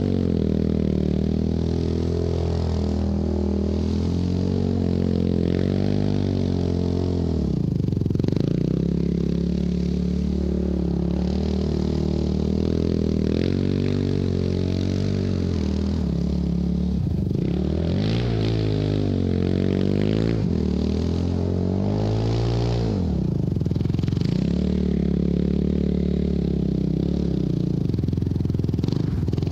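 Yamaha YFZ450 quad's single-cylinder four-stroke engine revving up and down under throttle. The pitch drops sharply and climbs back several times as the throttle is let off and opened again.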